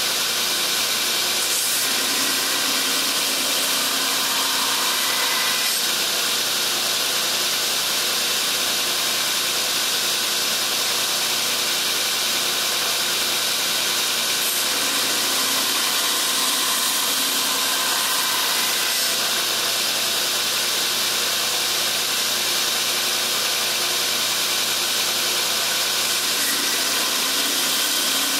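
Coote 72-inch belt grinder running with a hardened CPM154 stainless knife blade pressed against the belt on the contact wheel: a steady, even hiss of abrasive grinding the steel bevel over the machine's hum.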